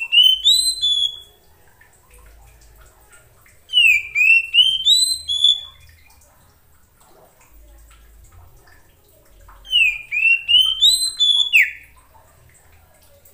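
Male Oriental magpie-robin (kacer) singing three short phrases of clear whistled notes, each phrase a run of quick slurred notes stepping up in pitch; the last phrase ends on a falling note.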